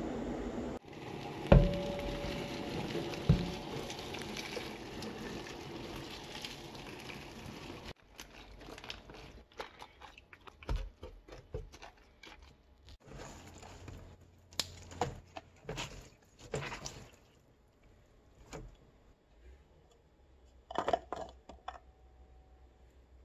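Kitchen handling sounds: a steady hiss with two sharp knocks in the first few seconds, then quieter scattered rustles, swishes and clicks as Swiss chard leaves are handled and washed in a plastic bowl.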